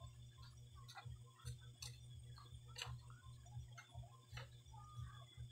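Faint, irregular clicks and knocks from a speargun's trigger mechanism being handled and set, over a low steady hum.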